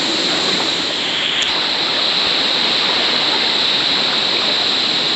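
Steady rush of a jungle river's water running over rocks, with a steady high hiss along with it.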